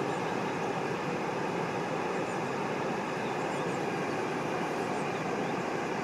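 Waterfall rushing steadily, an even, unbroken noise of falling water.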